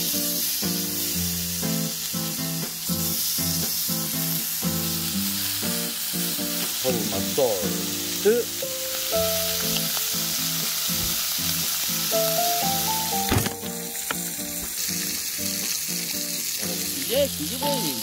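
Pork belly slices sizzling as they fry on a hot griddle pan, with background music playing over it.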